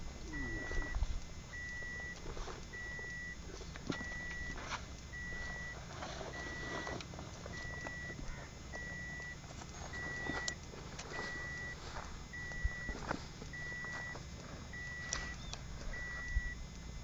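A car's electronic warning beeper sounds one high tone of about half a second, repeating evenly every 1.2 seconds or so, over a steady low rumble. Rustling and light knocks come from the camouflage clothing and gear being handled at the car's boot.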